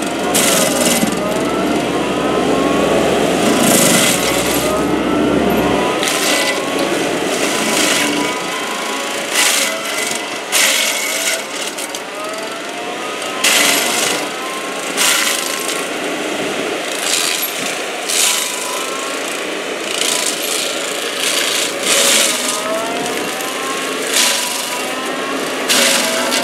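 FAE SCL/EX/VT excavator-mounted stump grinder, its toothed cutting rotor grinding stump wood and soil under load. A dense, steady machine noise whose pitch keeps rising in short glides, broken by frequent sharp cracks of chips and stones being struck.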